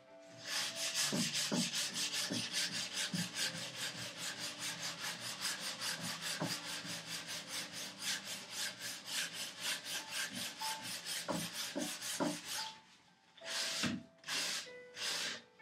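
Quick back-and-forth hand-abrading strokes on the edge of a wooden vise chop, about four strokes a second, easing off a sharp edge. Near the end the strokes slow to three longer passes.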